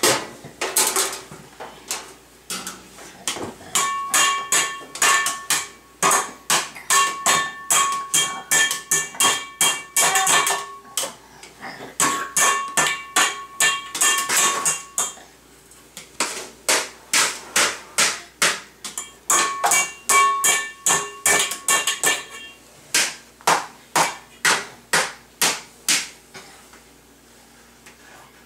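Toddlers banging metal kitchen utensils and pans: a rapid run of sharp metallic clangs, about two to three a second, many leaving a ringing tone, with a short lull near the end.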